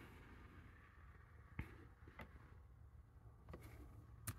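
Near silence broken by four faint, short clicks from a laptop being worked: touchpad or key clicks while a file is picked in an open dialog.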